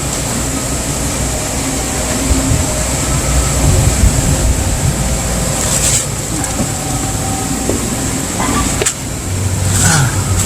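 A refrigeration condensing unit running steadily: the hermetic compressor hums and the condenser fan blows, with a thin steady high whine and a few light clicks. The compressor is a hard-starting one, now running on a 3-in-1 solid-state relay, overload and start capacitor.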